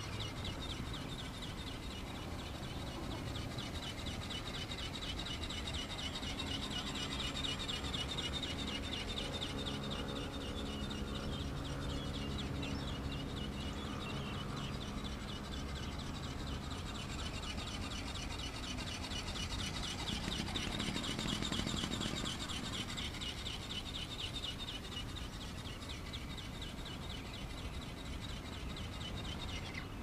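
Outdoor ambience: a steady, fast high-pitched chirring, with a faint low hum through the middle.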